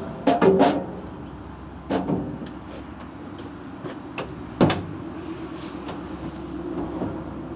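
Truck door being worked to check its fit: a series of metal clunks and knocks, with the loudest single clunk about four and a half seconds in, followed by a faint steady hum.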